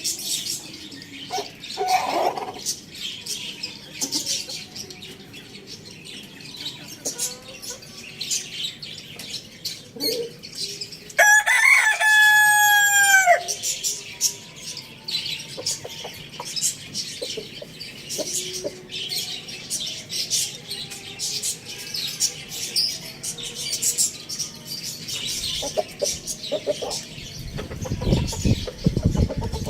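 A rooster crows once, about eleven seconds in: one call of about two seconds, held and then falling away at the end. Small birds chirp busily throughout, with a few clucks.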